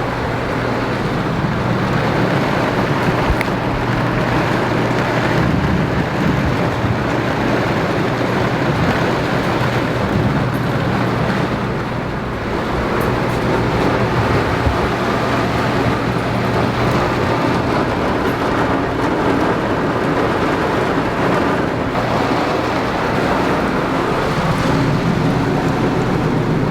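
Heavy rain pouring down on an Airstream travel trailer's aluminum shell, a dense, steady hiss, with a steady low hum underneath.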